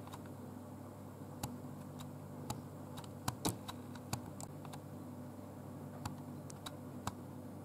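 Scattered light clicks and taps as small aluminium tea-light cups are set into a metal cheese-melter tray, over a low steady hum.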